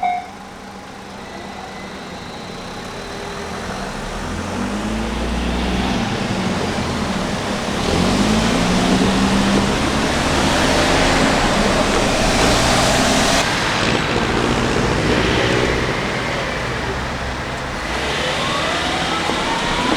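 Road traffic crossing a railway level crossing once the barrier bell has stopped. Cars pass one after another, their engines rising in pitch as they pull away. The traffic noise builds from about four seconds in and stays up, with another vehicle accelerating near the end.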